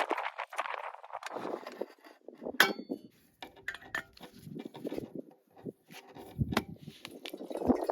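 Cooking utensils clinking and knocking against a pot or pan on a camp stove, with a sharp ringing metallic clink about two and a half seconds in and a heavier knock past six seconds. Food on the stove hisses, loudest near the end.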